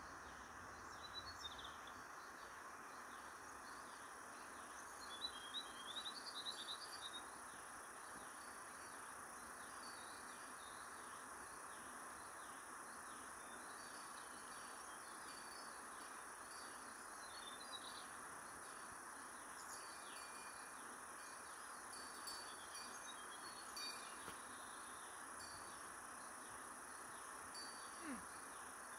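Faint, steady insect drone with short bird chirps over it, a quick cluster about five to seven seconds in and a few more around twenty to twenty-four seconds in.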